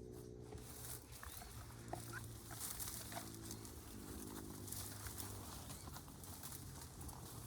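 Faint outdoor nature ambience: a high insect hiss with scattered short bird chirps, over a low steady hum.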